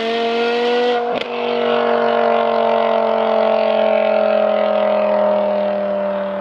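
BMW M5 E61's 5.0-litre S85 V10 engine running under load. Its note breaks briefly about a second in, as at a gear change, then holds steady while slowly falling in pitch.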